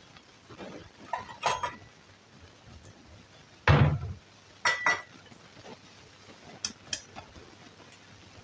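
Kitchen dishes clinking and knocking: a few light clinks, then a dull thump, quickly followed by two bright ringing clinks, and a couple of light ticks near the end.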